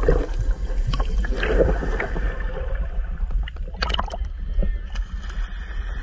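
Shallow sea water sloshing and gurgling around a camera held in the surf, partly underwater: a heavy low rumble with irregular splashes and knocks.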